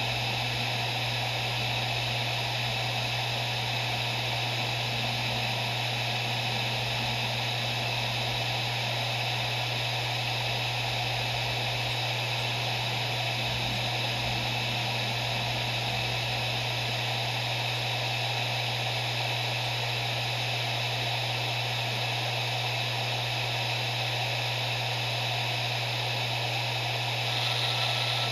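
Maxtor MaXLine Plus II three-platter 7200 rpm hard drive spinning at speed: a steady low hum with an even whirring hiss above it and no seek clicks. Near the end the hiss grows a little louder and a higher steady tone joins in.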